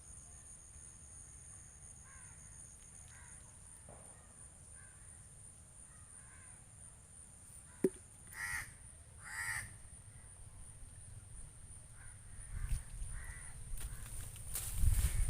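A crow cawing, two loud caws about a second apart a little past the middle with fainter calls before them, over a steady high-pitched whine. A sharp click comes just before the loud caws, and a low rumbling noise builds near the end.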